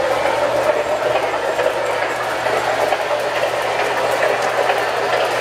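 MTH Premier O-gauge PRR Mikado steam locomotive and its passenger cars running along three-rail track: a steady rolling rumble and whir of wheels and motor, with light clicking over the rail joints.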